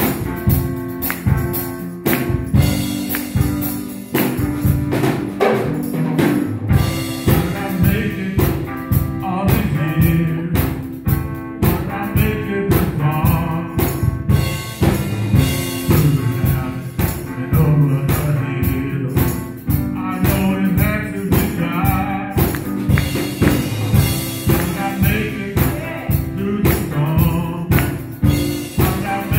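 Gospel music with a steady drum beat and tambourine, with a voice singing over it.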